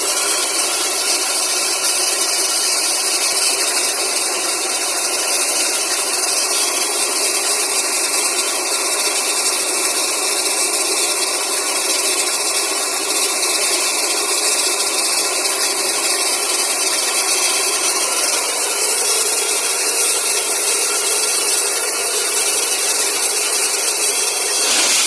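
Air compressor running steadily while flushing out a borewell: a loud, unbroken rush of air and water over machine noise.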